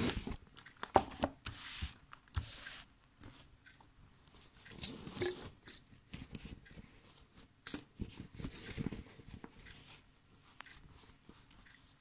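Rustling and crinkling of a black non-woven fabric carry bag being handled, in uneven bursts, with a few sharp clicks as small lighter accessories are set down on paper.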